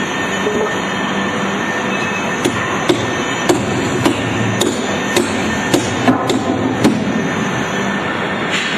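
Sharp knocks, about two a second, starting a couple of seconds in and stopping near the end, over a steady hum of workshop noise, during assembly of a vertical lathe.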